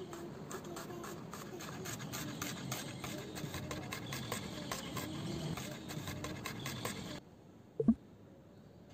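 Chef's knife thinly slicing a red onion on a bamboo cutting board: quick, even taps of the blade against the wood, about four or five a second. The tapping cuts off suddenly near the end, and a single low thump follows.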